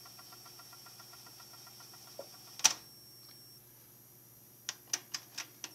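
Technics RS-TR232 cassette deck rewinding a tape, a faint whir with an even rapid ticking from the spinning transport, which stops with one loud clunk about two and a half seconds in. Near the end comes a quick run of about five mechanical clicks from the transport buttons and mechanism.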